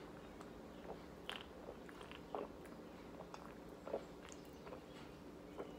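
Faint mouth sounds of drinking from a can: a few quiet sips, swallows and small clicks spaced out over several seconds, above a low steady hum.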